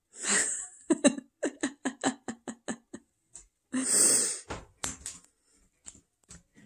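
A woman laughing quietly: a breathy burst, then a quick run of short chuckles, then a long laughing exhale about four seconds in.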